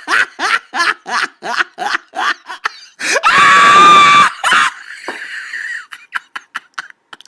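A person laughing in quick, rhythmic bursts of about three to four a second, then about three seconds in a loud, high-pitched scream held steady for over a second, with a short shriek right after it.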